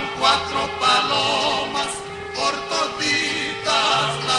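Music with a male voice singing, the melody wavering with vibrato.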